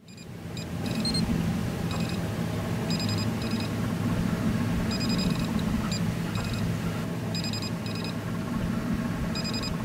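A fish finder beeping in short high electronic clusters every second or two, over a steady low hum from the boat's motor.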